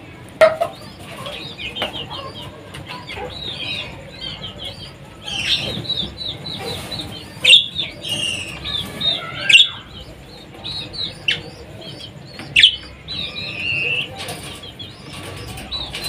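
Budgerigars chattering: a continuous stream of rapid, high twittering chirps and warbles, with a few sudden loud noises among them.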